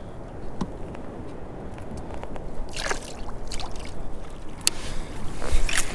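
Water sloshing and dripping around a kayak hull, with a few light clicks and small splashes scattered through, getting a little louder near the end.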